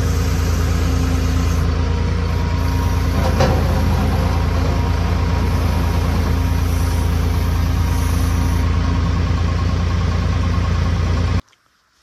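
New Holland skid steer's diesel engine running steadily, heard from the operator's seat. The sound cuts off suddenly near the end.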